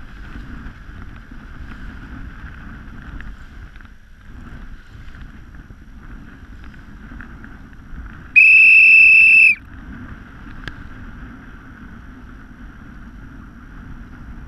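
A whistle blown once, a single steady high blast of just over a second about eight seconds in: a coach's signal to the sailors during an on-water drill. Under it, steady wind and water rush from the moving coach boat.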